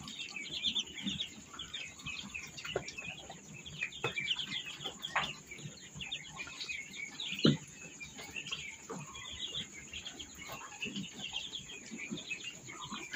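A brooder full of day-old ducklings peeping continuously, many short overlapping high chirps, with one sharp knock about seven and a half seconds in.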